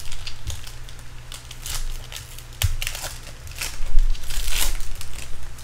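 Crinkling and clicking of foil card-pack wrappers and trading cards being handled, a run of irregular crackles and rustles.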